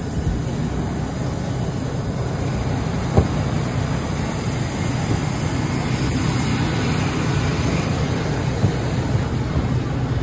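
Steady low drone and hiss of jet aircraft noise on the airport ramp, with one sharp knock about three seconds in.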